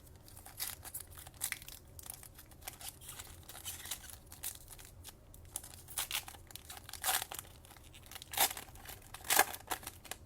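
Wrapper of a trading-card pack being torn open and crinkled by hand: a run of irregular crackling rustles, with a few sharper, louder crackles in the second half.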